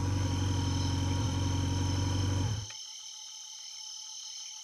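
A loud, steady low rumble cuts off abruptly about two and a half seconds in. Behind it, crickets chirp steadily all through, and they are left alone once the rumble stops.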